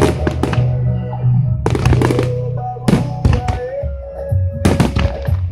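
Aerial fireworks bursting in a series of sharp bangs, several in quick pairs, over loud music.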